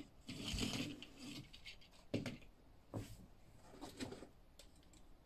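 Plastic Transformers toy figures being handled: a soft rustle of handling, then three light clicks or knocks about a second apart as a figure is set down on a tiled tabletop.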